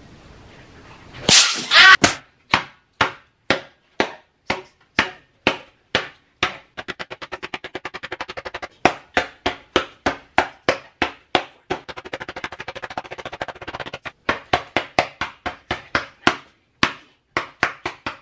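A hand repeatedly slapping a sheet of watercolor-painted paper held up in the air: sharp slaps about two a second, with faster runs of quicker slaps in places. About a second in, a loud noisy burst stands out above the slaps.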